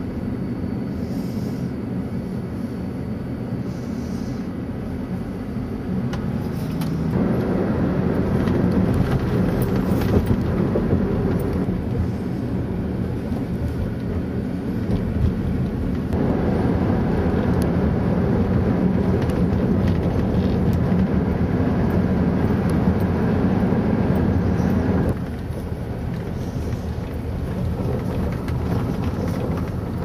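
A moving car's road and engine noise heard inside the cabin, a steady rumble. It gets louder abruptly about seven seconds in and drops back abruptly near the end.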